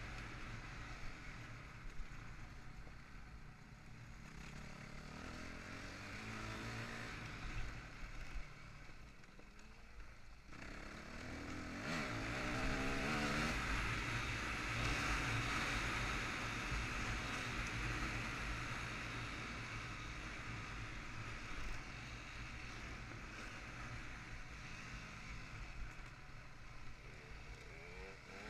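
Yamaha WR250F four-stroke single-cylinder enduro bike ridden along a dirt track, engine revs rising and falling as the rider works the throttle, heard through a helmet-mounted camera with wind rushing over the microphone. The rushing noise is loudest through the middle.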